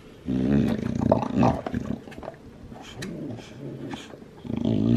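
Olde English Bulldog growling low in its throat while gnawing a knotted rawhide bone: a growl about a second and a half long near the start, quieter gnawing with clicks of teeth on the bone in between, and another growl starting near the end.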